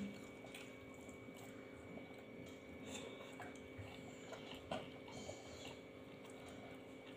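Faint eating sounds at a table: quiet chewing and fingers working rice on a plate, with a few soft clicks, over a steady faint hum.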